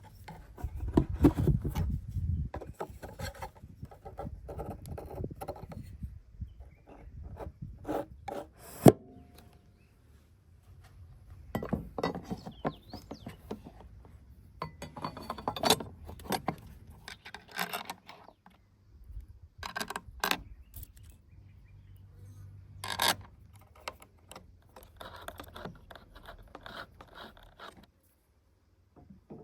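Irregular rubbing and scraping with scattered sharp knocks and clicks, the sound of things being handled; the loudest knock comes about nine seconds in.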